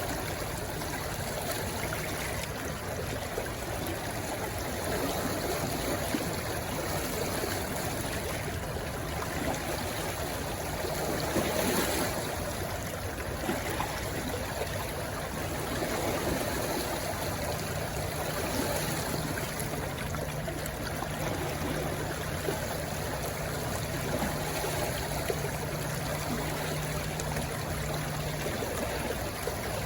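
Stream rushing steadily as it flows into the sea, a continuous wash of running water with some trickling. A faint low hum sits underneath, clearest in the second half.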